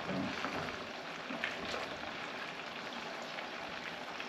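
A large pot of water at a rolling boil with penne cooking in it, bubbling steadily, with a few faint light clicks as a utensil stirs it.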